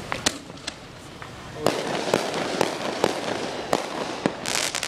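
Consumer fireworks and firecrackers going off in a rapid, irregular series of sharp pops and cracks, bunching into a dense crackle near the end.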